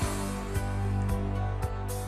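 Background music with a steady beat of about two drum hits a second under held notes.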